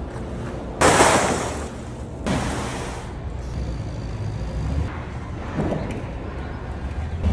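A heavy flatbed tarp sliding and rustling as it is dragged off the load, loudest in a rush about a second in and again briefly a little after two seconds. Underneath, the steady low rumble of an idling diesel truck engine.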